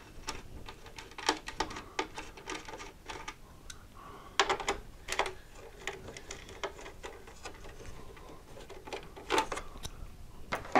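A 3/16-inch nut driver unscrewing small metal studs from an oscilloscope chassis: a run of light, irregular metallic clicks and rattles, with a few sharper clicks.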